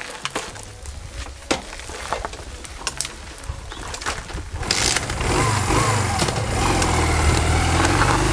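Honda motorcycle engine running low with a few clicks and knocks, then revving much louder about five seconds in as the bike pulls away.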